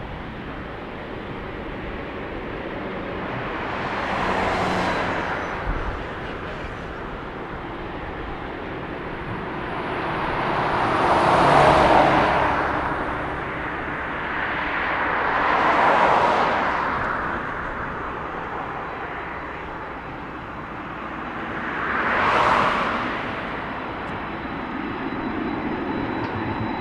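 Jet engine noise from a departing four-engine Boeing 747-8 freighter, rising and falling in four swells with a faint steady high whine beneath.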